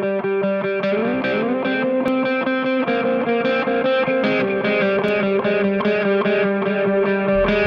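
Background music: distorted electric guitar playing a rhythmic chord pattern with a sliding note about a second in.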